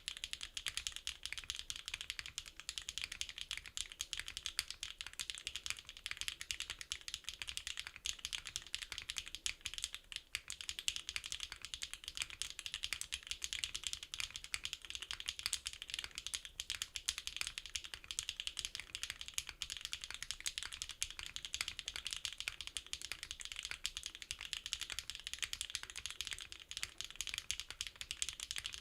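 Continuous fast typing on a NEO65 custom mechanical keyboard with HMX EMO linear switches: a dense, steady stream of crisp keystroke clacks with no pauses.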